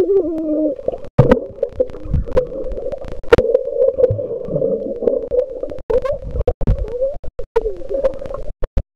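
Muffled voices of swimmers humming and calling out underwater, heard through a submerged microphone as a wavering, pitched drone. Bubbles and knocks can be heard throughout, and the sound drops out completely for brief moments several times.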